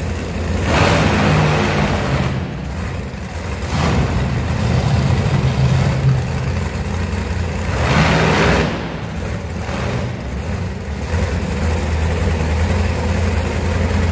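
Monster truck engine running with a steady low drone, revved in a few short surges as the truck creeps forward onto a pile of crushed cars. It echoes in a large arena.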